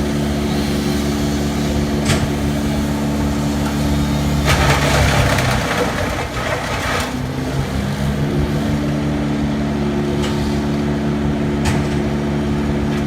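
Engine of a tree-shredding machine running steadily. About halfway through, a burst of harsh rough noise comes in and the engine note sags for a few seconds, then recovers. A few sharp knocks are heard.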